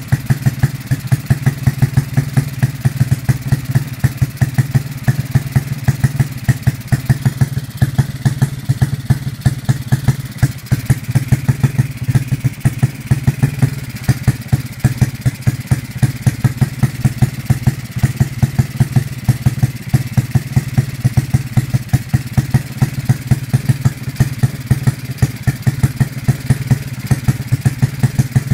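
Modified Honda Supra single-cylinder four-stroke engine, fitted with Honda Sonic 150 valves, idling steadily on the stand. It runs with an even, rapid, sharp beat.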